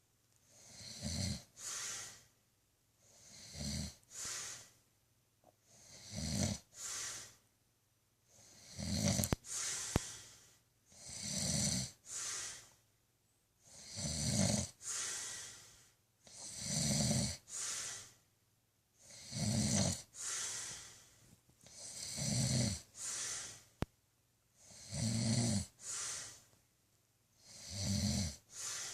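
A man snoring loudly in his sleep, with about eleven even breaths, one every two to three seconds. Each is a low snore followed by a breathy hiss, with a quiet pause before the next.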